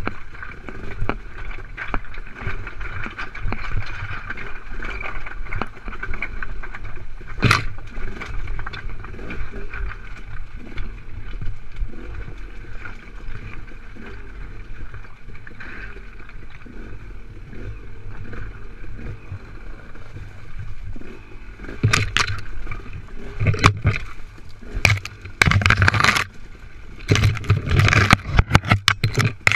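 Dirt bike engine running at low speed as the bike crawls over loose rock, with one sharp knock about seven seconds in. In the last several seconds, branches and brush scrape and slap against the bike and the rider's helmet in loud, irregular crashes.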